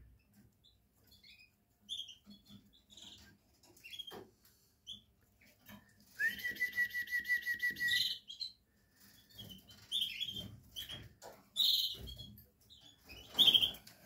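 Canaries chirping: scattered short, high chirps, and about halfway through a rapid, even trill of repeated notes lasting about two seconds.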